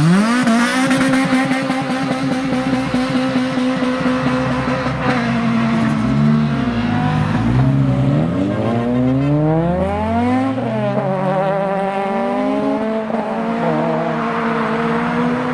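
A modified car's engine revved hard: the revs shoot up at the start and are held high for about five seconds, then climb and drop several times before holding steady again near the end.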